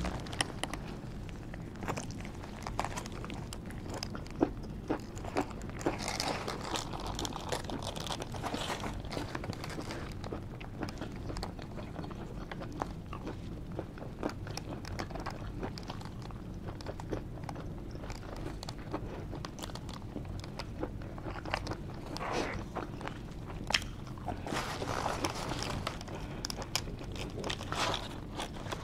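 Close-up mouth sounds of a person eating a cheesesteak sandwich: biting and chewing with many small wet clicks, busier in a few stretches.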